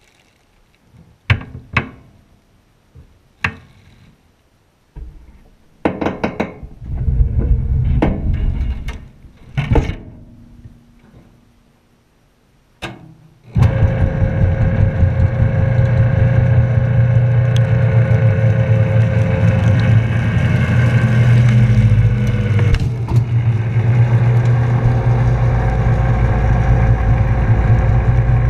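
A few scattered knocks and clunks, then about halfway through a trash compactor's electric motor starts and runs steadily with a low hum as the ram crushes a load of bagged diapers.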